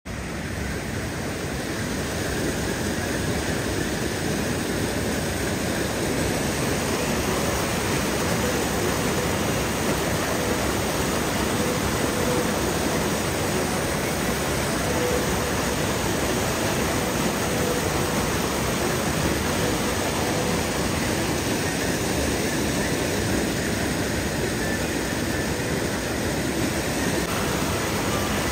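Mountain stream rushing over rocks: a steady, loud rush of water.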